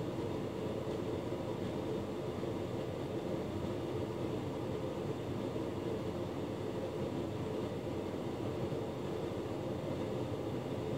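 Hotpoint Ultima S-Line tumble dryer running, a steady whirring hum from its motor and fan.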